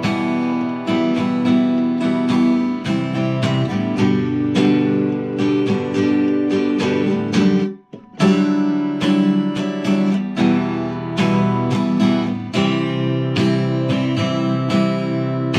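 Cutaway acoustic guitar strummed in a steady chord pattern, cutting off abruptly for a moment about eight seconds in (the song's stop) before the strumming picks up again.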